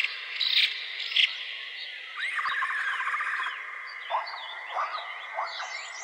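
Wetland animal chorus: chirping calls and rapid trills over a steady high hum, with a few short, lower calls near the end.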